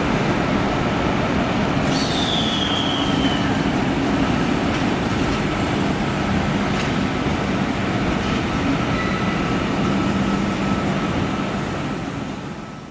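A passenger train running away along the tracks at a station platform: a steady rumble and hum, with a short high squeal that falls in pitch about two seconds in. The sound fades out near the end.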